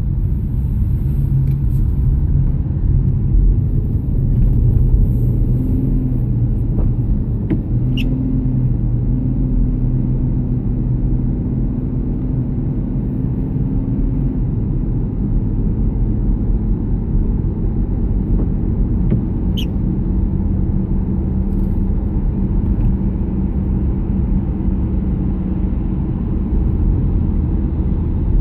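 Car cabin noise while driving: a steady low rumble of road and engine, with an engine hum that shifts in pitch about halfway through. Two faint clicks, about 8 and 19 seconds in.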